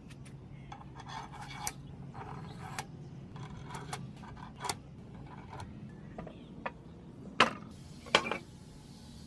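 Metal parts of a hand-made bident being handled and fitted together: short clicks, scrapes and knocks, with two louder sharp knocks near the end, over a steady low hum.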